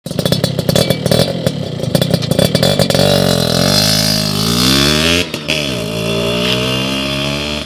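Yamaha F1ZR two-stroke motorcycle engine through a KY26 SR1 Pro racing exhaust, revved in quick uneven blips with a rapid crackling pulse. It then accelerates away, rising in pitch, breaks briefly about five seconds in, and rises again as it rides off.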